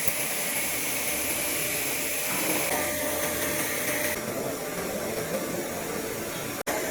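Orbital TIG automatic welding system at work, giving a steady hiss from the arc and its shielding gas. The hiss shifts in tone a couple of times and breaks off for an instant near the end.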